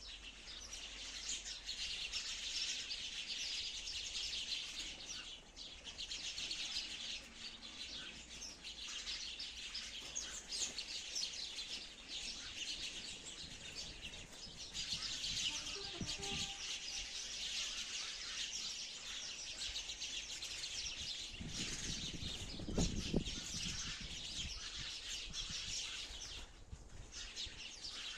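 Sparrows chirping in a dense, continuous chatter of rapid high chirps. Near the end, a few seconds of low rumbling rise beneath it.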